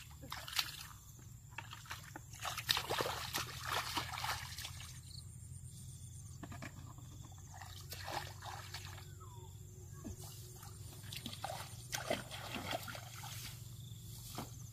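Water sloshing and trickling, with scattered small splashes over a steady low hum.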